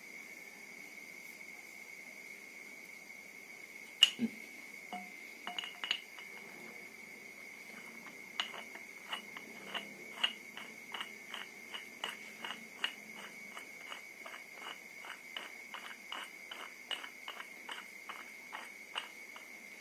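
Metal regulator being screwed by hand onto a small 360 cc PCP air tank: a single knock about four seconds in, a few clicks, then a quick, even run of light clicks, about three a second, from around eight seconds on. A steady high-pitched tone sounds underneath.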